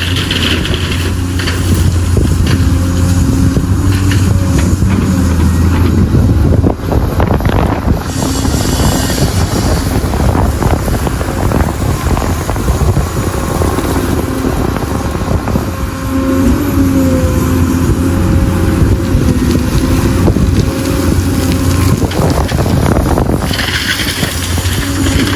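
Heavy diesel earthmoving machinery at a mine, excavators and dump trucks, running steadily with a low engine hum throughout. Short knocks and rattles come and go, and bursts of hiss rise and fall near the start, about eight seconds in, and near the end.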